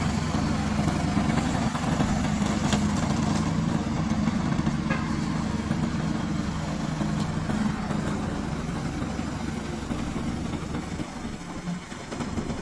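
Small engine of a tracked remote-control lawn mower running steadily, dropping off slightly near the end.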